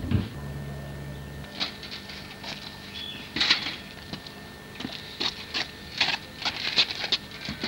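Footsteps crunching on an outdoor garden path: irregular light clicks and scuffs. A brief steady low hum sounds near the start.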